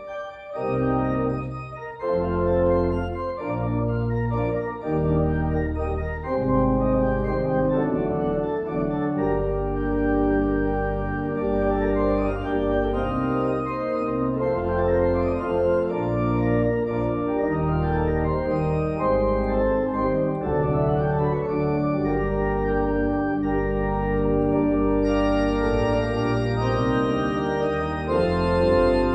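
Church organ playing held chords over deep bass pedal notes, the chords changing every second or two.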